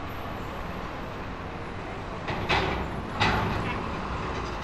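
Outdoor street traffic with a steady low rumble, and two short, sharp hisses about two and a half and three seconds in.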